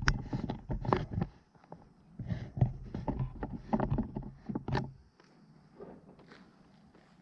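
Footsteps swishing through long grass with rustling close to the microphone: irregular swishes and knocks that stop about five seconds in, leaving a faint hush.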